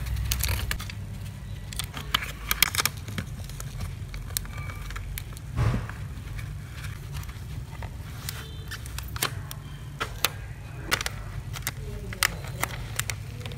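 Hands handling a spiral notebook with a clear plastic cover stuffed with fluffy filling: crinkling plastic and scattered sharp clicks and taps as the cover and pages are pressed and turned, over a steady low hum.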